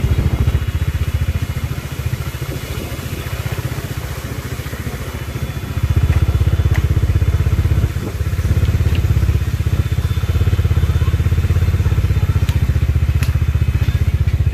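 Bajaj Dominar 400's single-cylinder engine running under way, a steady low throb that eases off for a few seconds and picks up again about six seconds in.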